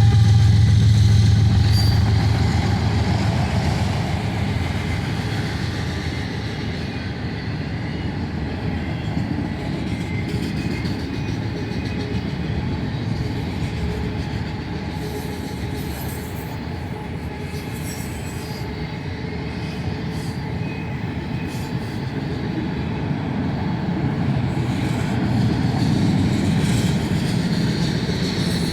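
Autorack freight train rolling past: the lead diesel locomotive's engine drone fades over the first few seconds, leaving the steady rumble and clatter of the cars' wheels on the rails. The sound swells again near the end.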